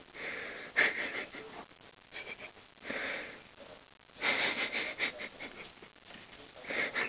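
A pet sniffing and snuffling in short bursts, several times with pauses between.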